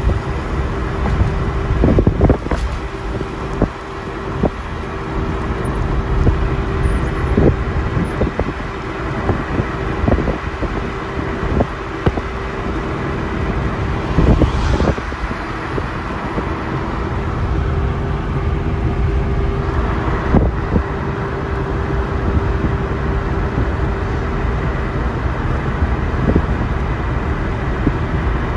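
Vehicle driving along a motorway: a steady low road-and-engine rumble with a constant hum, broken by irregular short thumps.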